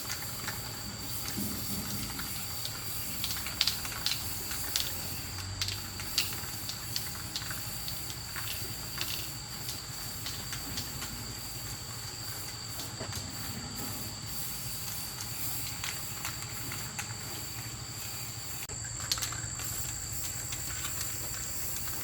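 Steady high-pitched insect chorus, two even tones held throughout, with scattered light clicks and taps, most of them in the first third and one more near the end.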